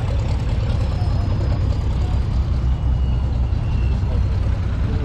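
Heavy wind rumble on the microphone with a faint, steady high whine from the turbofan of a taxiing Cirrus Vision Jet.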